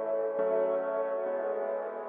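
Background music: slow, sustained chords that change twice.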